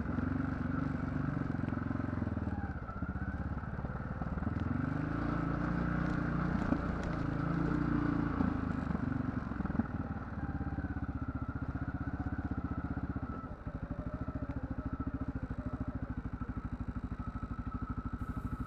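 ATV engine running, its pitch rising and falling with the throttle over the first half, then settling to a steady, even beat at low revs for the rest.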